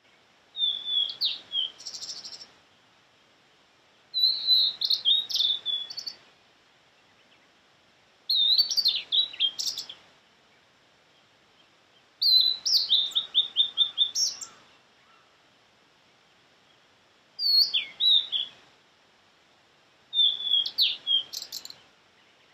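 Male blue-and-white flycatcher singing: six short phrases of high, clear whistled notes and quick slurs, each about two seconds long and spaced about four seconds apart, one of them ending in a fast run of repeated notes.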